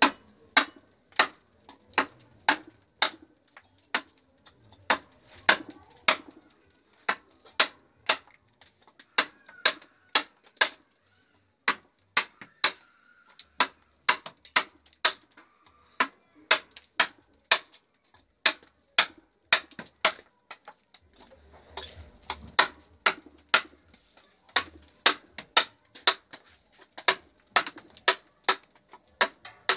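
Wooden mallet striking a wood-carving chisel into a solid block of wood, sharp knocks about two a second with a few short pauses, as the figure is roughed out.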